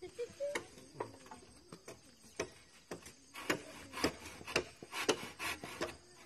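Hand saw cutting through a wooden pole, rasping back-and-forth strokes, sparse at first and then steady at about two strokes a second in the second half.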